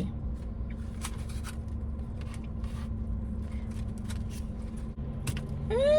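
Soft, scattered rustles and clicks of a chicken sandwich being handled and eaten out of its wrapper, over a steady low hum. Near the end comes a short hummed 'mmm' that rises and then falls.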